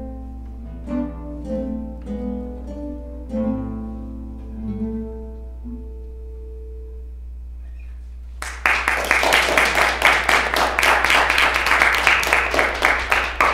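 An ensemble of five acoustic guitars plays the closing plucked chords of a piece, which ring out and fade away. About eight and a half seconds in, an audience breaks into loud applause.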